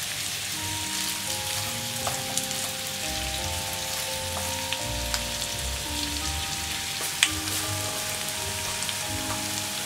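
Potato slices, onion and bacon sizzling in olive oil in a frying pan, with chopsticks stirring and clicking against the pan now and then; the sharpest click comes about seven seconds in. Background music plays underneath.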